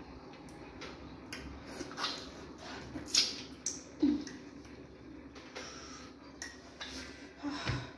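Eating sounds of fufu dipped by hand in banga soup: scattered wet smacks, squelches and clicks of hands, mouths and the bowl, loudest a little after three seconds and again about four seconds in.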